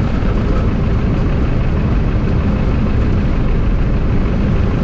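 Piper J-3 Cub gliding in with its engine at idle: a steady, loud rush of airflow noise with the idling engine underneath.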